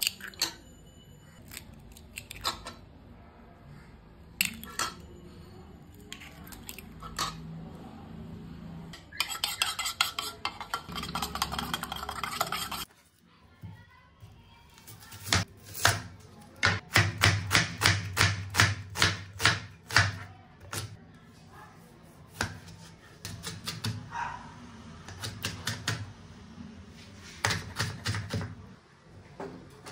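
Eggs tapped and cracked on a ceramic bowl, then a dense run of fast clinking in the bowl. After a break, a large kitchen knife chops red onion and red chilli on a plastic cutting board in quick, regular strokes, about three a second.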